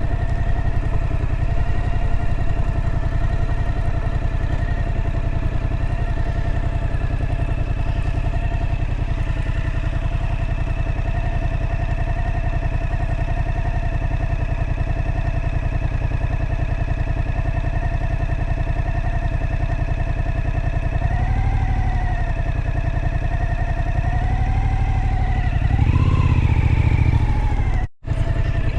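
Suzuki V-Strom motorcycle engine running at a steady cruise, with a low rumble of wind and road noise. The engine pitch dips and recovers about two thirds of the way through and rises again near the end, then the sound cuts out for an instant.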